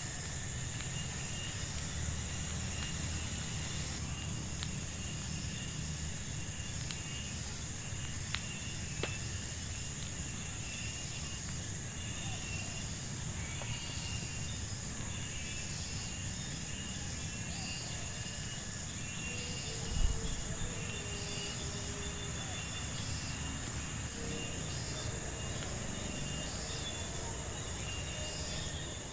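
Evening insect chorus in forest: a steady high drone with chirps repeating over it, and a low rumble underneath. One short thump about twenty seconds in.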